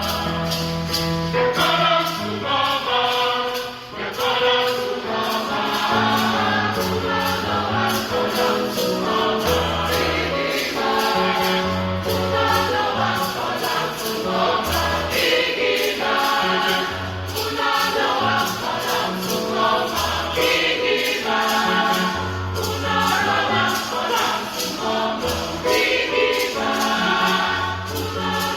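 A gospel choir singing in harmony over a band with a bass line and steady percussion, a tambourine among it.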